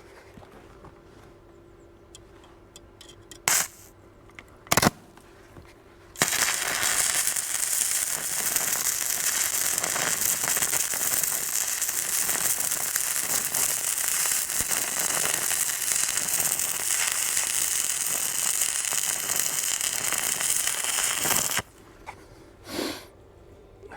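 Stick (MMA) arc welding on steel: after two short sharp strikes of the electrode, the arc catches about six seconds in and burns with a steady crackling sizzle for about fifteen seconds, then cuts off suddenly.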